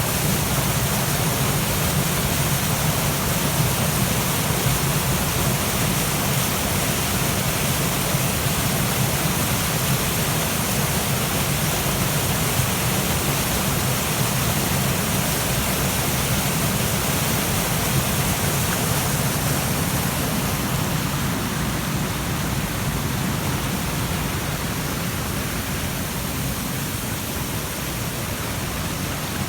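Waterfall rushing: a steady, full roar of falling water with no breaks, a little softer in the last third.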